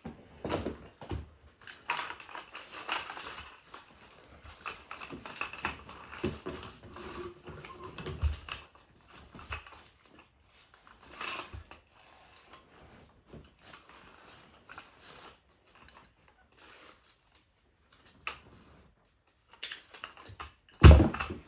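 Irregular handling noises: rustling, clicks and knocks as metal hunting climbing sticks are pulled free of their packaging rope and separated, with a louder knock near the end.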